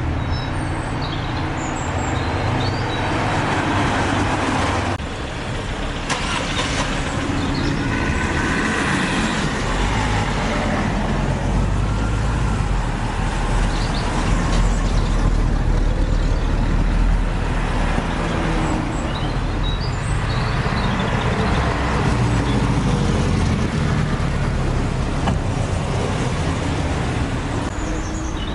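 Engines of old cars running and moving about, a continuous rumble, with a few faint high chirps here and there.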